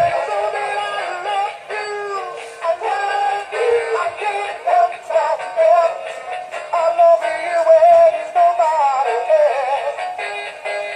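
Battery-powered Valentine's singing plush gorilla playing its electronic song through a tiny tinny speaker, a thin sung melody with no bass, stopping right at the end. It plays because the freshly resoldered wiring works.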